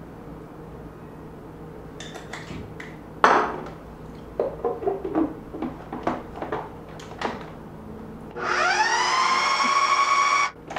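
Food processor motor spinning up with a rising whine, running steadily for about two seconds while blending a creamy mousse, then cutting off sharply. Before it, scattered light clicks and knocks of a spice jar and the processor lid being handled.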